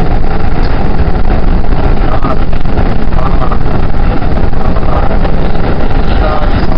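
Keikyu electric commuter train running along an elevated viaduct, heard from aboard: a steady, loud rumble of wheels and running gear on the rails.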